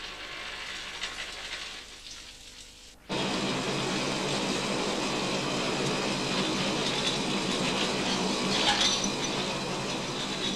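Ore running from a chute into a mine car. About three seconds in it switches abruptly to the louder, steady rattling noise of a train of loaded ore mine cars moving along the track.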